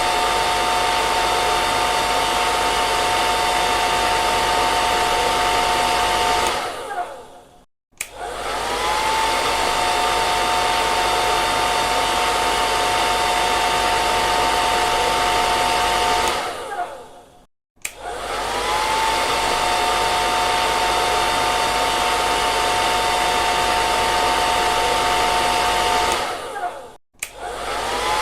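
Handheld hair dryer blowing with a steady rush of air and a two-tone motor whine. About every ten seconds it is switched off and winds down to a moment of silence, then clicks back on with a rising whine. This happens three times.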